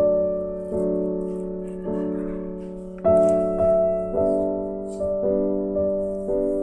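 Background piano music: slow chords struck about once a second, each one fading out, over a steady low held note.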